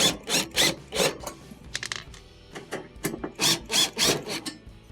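Phillips screwdriver backing screws out of the sheet-metal cover plate over an electric range's terminal block, in short scraping strokes: a cluster in the first second and another about three and a half seconds in.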